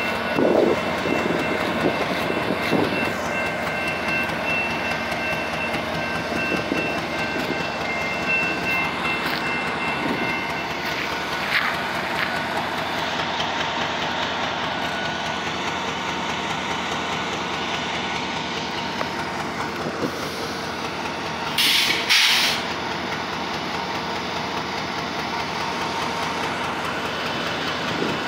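Freight train passing close by, led by a GE ES44DC diesel-electric locomotive with an EMD SD70ACe trailing, then covered hopper cars rolling past with a steady rumble of wheels on rail. A steady high tone sounds over the first ten seconds or so. About two-thirds of the way through, a brief loud high-pitched noise cuts in for about a second.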